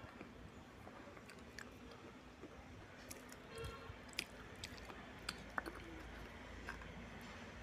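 A person chewing and crunching pieces of baked red clay from a surai water pot coated in red clay paste: faint, scattered small crunches and clicks, with a bite into a fresh piece near the end.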